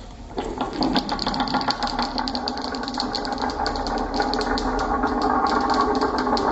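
Many marbles rolling and clacking down a wooden HABA marble run. It makes a steady, dense rattle of quick clicks.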